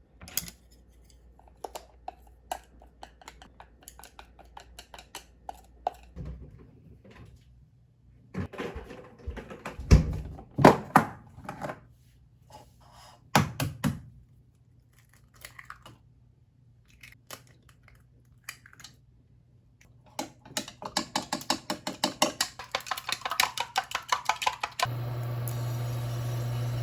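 Kitchen handling sounds: dishes and utensils clicking and knocking, with a few louder knocks in the middle. Near the end comes a quick run of even knocks, about four a second, and then a steady low hum comes on.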